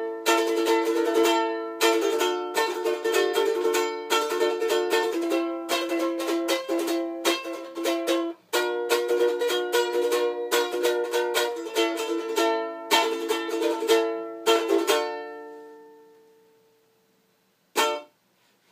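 3D-printed ukulele strummed in a steady rhythmic chord pattern. The playing breaks off for a moment about halfway through and ends on a chord left to ring out and fade, followed near the end by one short strum that is cut off quickly.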